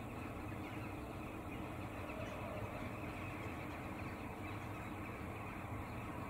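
Steady low hum and hiss of outdoor background noise, with no clear bird call or distinct event.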